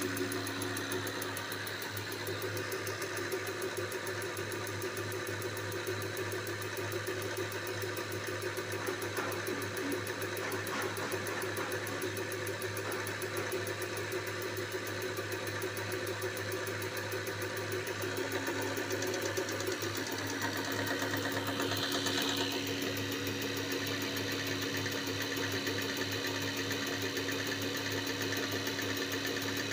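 Diesel injector test bench running with a Siemens Continental common-rail injector firing on it: a steady machine hum under a fast, even mechanical ticking, the sign that the injector is now firing after being set up.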